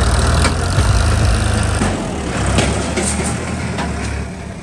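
Diesel tractor engine running close by, with a loud rushing noise over it, dropping off near the end.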